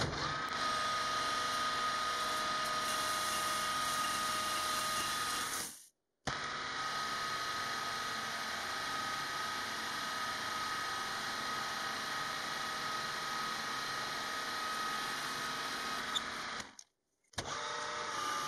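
Metal lathe turning a steel bar with a carbide insert: the machine runs with a steady high whine over the hiss of the cut. The sound cuts off abruptly to silence twice, about six seconds in and again near the end, then resumes.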